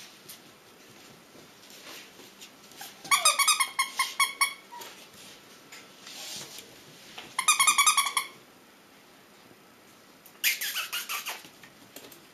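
Six-week-old puppy yapping in rapid high-pitched bouts, three times: about three, seven and ten seconds in.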